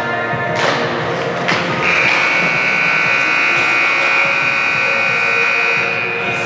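Gym scoreboard buzzer sounding one long steady blast of about four seconds, starting about two seconds in, over music.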